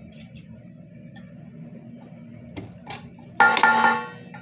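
A metal spoon clinks against a stainless-steel mixing bowl: a few faint taps, then about three and a half seconds in one loud clink that rings briefly. A low steady hum runs underneath.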